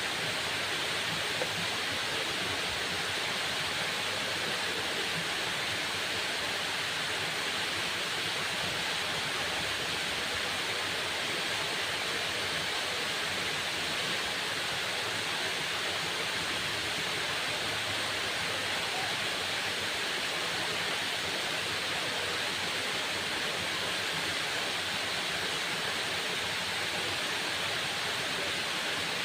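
Waterfall: a steady, unbroken rush of falling water with a hiss that stays constant.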